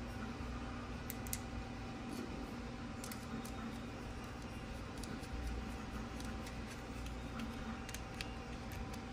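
Scattered light clicks and ticks of small blade screws and a metal trimmer blade being fitted by hand onto a hair trimmer, over a steady low hum.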